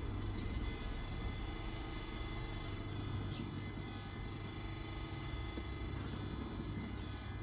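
Steady low hum with faint steady high tones above it and no distinct events.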